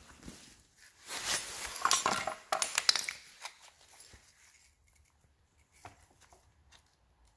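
Loose metal scooter parts and tools clinking and rattling as they are handled, loudest in a busy stretch from about one to three and a half seconds in, followed by a few light clicks.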